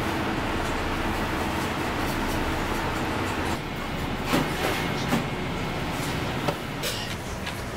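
Steady kitchen background rumble and hiss. After a few seconds it drops slightly, and a few short knocks and clinks are heard.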